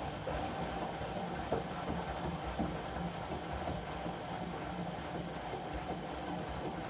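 Whirlpool integrated washing machine running in the heating stage of a 95° cottons wash: a steady mechanical rumble with a few sharp clicks.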